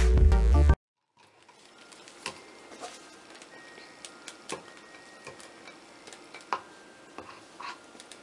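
Loud electronic dance music with a heavy beat cuts off under a second in. After that come faint, scattered clicks and taps as a silicone spatula scrapes thick soap batter off a stick blender's shaft and against a plastic cup.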